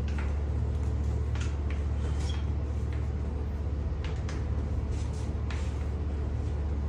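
Steady low room hum, with a few faint short clicks and rustles from hands working the patient's feet and legs on a padded treatment table.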